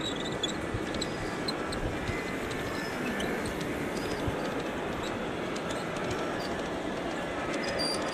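Large-scale garden-railway model freight train of double-stack container cars rolling past close by, a steady running noise of its wheels on the rails with scattered light clicks.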